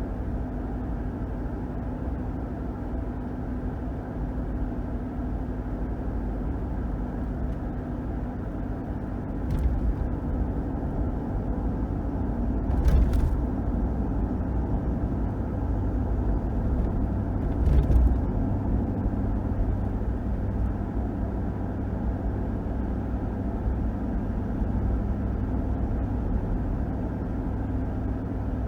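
A 2021 Ram 1500 pickup with its 5.7-litre HEMI V8 driving at steady speed: a continuous low engine and road drone. A few brief thumps come through, about ten, thirteen and eighteen seconds in.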